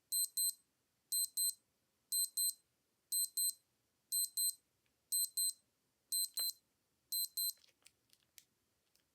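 Old digital wristwatch alarm beeping in high-pitched double beeps, one pair about every second, eight pairs in all. After the beeping stops, a few faint clicks.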